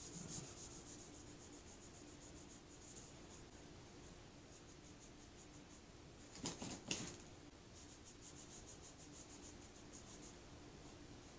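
Faint, rapid rubbing of a cloth rag against a painted tumbler, wiping off barely tacky paint with acetone to expose the glitter beneath. There are two louder knocks a little past halfway.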